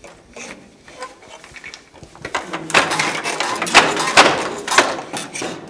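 Traditional wooden hand loom weaving linen: a run of wooden knocks and rattles from the batten and shuttle, about one a second, starting about two seconds in after a few faint clicks.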